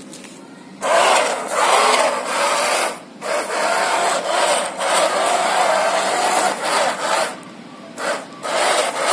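Small yellow plastic-geared DC motors (BO motors) of an Arduino-controlled toy truck whirring as the truck drives over a woven plastic mat, run in bursts from the phone app. They start about a second in and stop briefly near three seconds and again near seven seconds.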